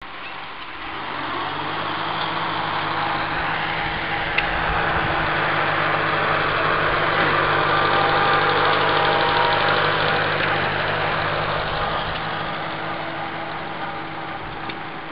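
Silver King tractor engine running steadily as the tractor drives past, growing louder toward the middle and easing off afterwards.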